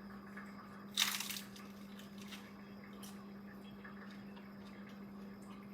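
A crisp tostada shell crunching loudly as it is bitten into about a second in, followed by a few quieter crunches while chewing.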